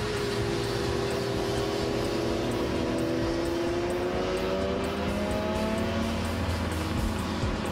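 Motorcycle engine accelerating on a race track, its pitch rising slowly over several seconds before easing off near the end.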